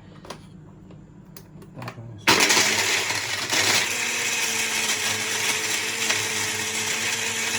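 A few light clicks, then about two seconds in a kitchen blender starts suddenly and runs steadily at full speed, blending ice and daiquiri mix.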